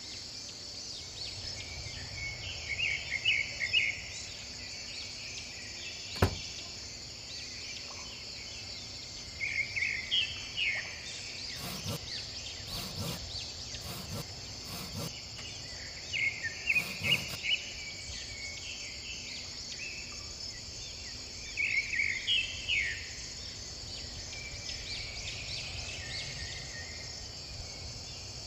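Outdoor ambience: a steady high drone of insects such as crickets, with bird chirps coming in short flurries four times. A sharp click about six seconds in and a few soft knocks in the middle.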